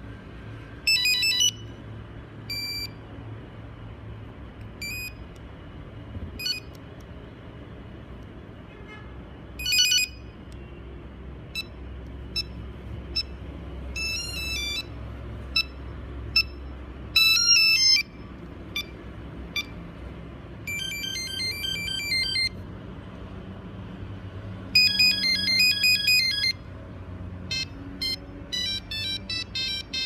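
Nokia 3310 playing its built-in monophonic ringtones in short snippets one after another. Each tune is a quick run of electronic beeps that stops suddenly as the next tone in the list is selected.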